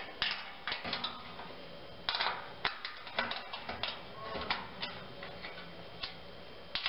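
Irregular metallic clicks and rattles of a wrench and a 4 mm Allen key working a nut and bolt on a futon's steel frame bracket, as the bolt is tightened.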